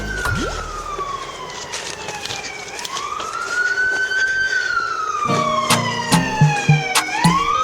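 Emergency vehicle siren wailing on a nearby road, slowly rising and falling about every three seconds.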